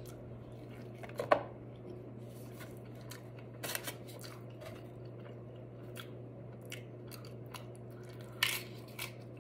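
Close-miked eating: chewing a burrito, with sharp wet clicks of the mouth and a few louder snaps, the sharpest about a second in. Near the end, a tortilla chip bitten with a crunch.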